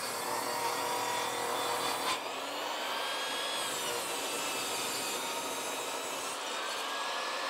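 Jobsite table saw running and ripping a long board lengthwise, the blade cutting through the wood with a steady whine.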